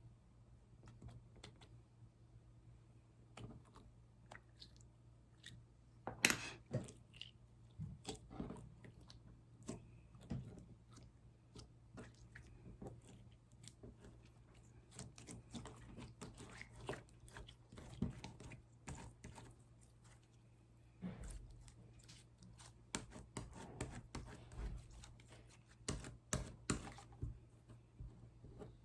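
Slime being pressed and worked by hand, giving a run of irregular small clicks, pops and squelches, the loudest about six seconds in.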